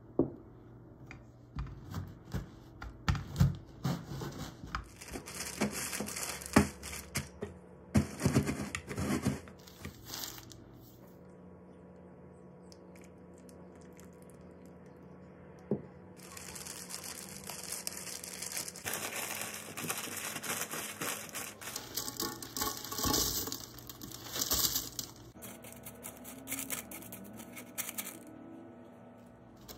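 Plastic zip-top bag crinkling and crackling as cookies are crushed inside it, in dense runs of crunches and crackles with a quieter stretch in the middle.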